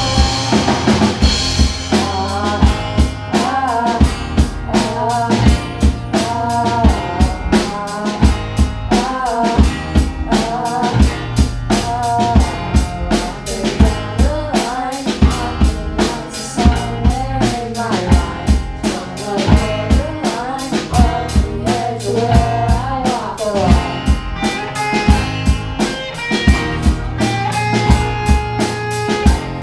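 Rock band playing live: a drum kit keeping a steady beat under electric guitars.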